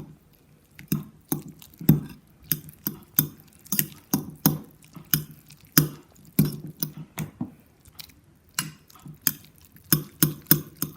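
A utensil repeatedly clinking and knocking against a bowl as instant noodles in their liquid are stirred with seasoning, about two or three knocks a second.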